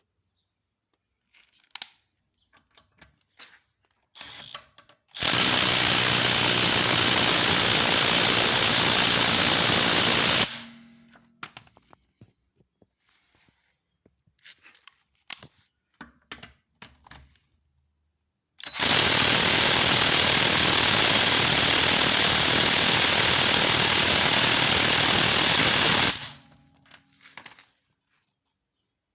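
Parkside impact wrench and impact driver each run in turn: two long bursts of steady, rapid impact hammering, the first about five seconds long and the second about seven, with scattered handling clicks before, between and after.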